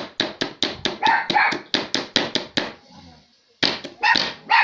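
Rapid knocking, about five knocks a second, for the first two and a half seconds, with a toy poodle barking at it. The dog barks twice about a second in, then several times more near the end.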